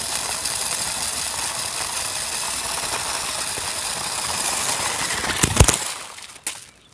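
A small electric motor and gearbox whirring steadily with a high whine, likely the RC rock crawler's drivetrain running close to the microphone. A loud knock comes about five and a half seconds in, then the whirring dies away.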